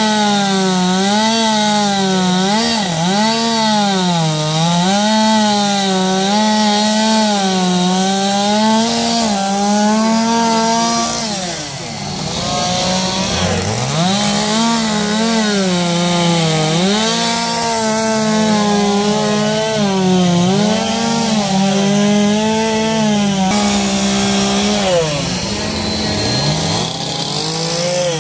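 Gas chainsaws carving wood, the engine pitch rising and falling steadily as the throttle is worked through the cuts. More than one saw is heard at times.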